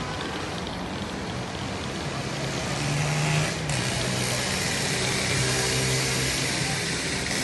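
Vehicle engine idling with a steady low hum that steps down slightly in pitch about three and a half seconds in, over a constant rumble and hiss.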